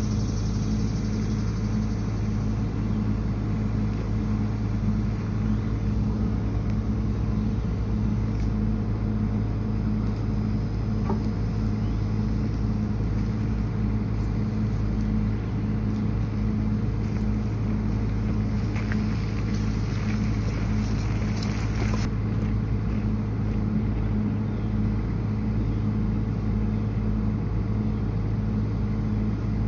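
Mini excavator's engine running steadily at a constant pitch.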